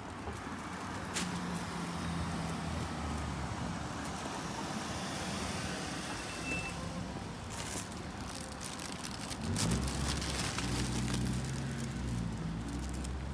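Street traffic: a motor vehicle engine running nearby over a steady hiss of road noise, its low hum growing louder about ten seconds in.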